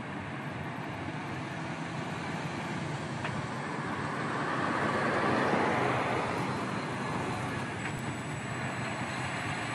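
MAN truck's diesel engine running as the truck moves slowly, growing louder about halfway through and easing off again.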